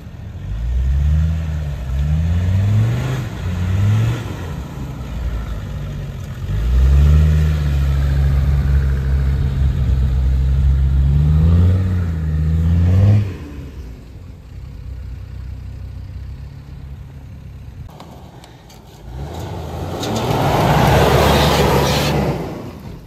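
Land Rover Discovery TD5's five-cylinder turbodiesel revving up and down as it climbs over rough snowy ground, then pulling steadily under load before backing off about thirteen seconds in. Near the end a Jeep Grand Cherokee's 4.0 straight-six revs hard through brush, with a loud rushing noise over the engine.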